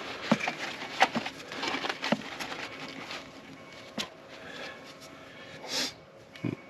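Hands working at a removed diesel EGR valve with a cleaning cloth: rustling and rubbing, with scattered sharp clicks and knocks of the metal part being handled, and a short hiss near the end.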